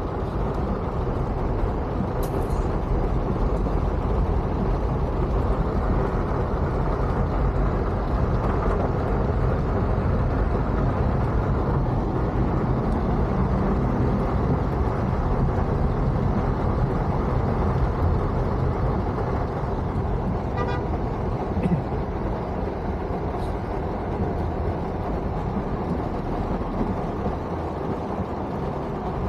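Steady low noise of heavy rain and traffic heard from inside a car, with a car horn tooting now and then.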